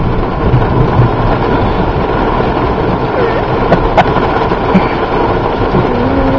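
Steady rush of wind and rain from a squall line, loud on the microphone, with a single sharp click about four seconds in.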